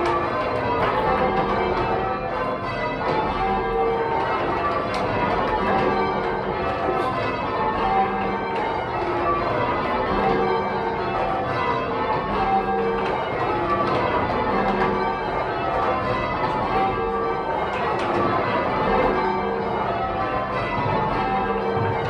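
Ring of eight church bells cast in 1911 by John Warner and Sons, rung full-circle in changes and heard from the ringing chamber below. It is a continuous, even stream of bell strikes following one another in quick succession, the ringing tones overlapping.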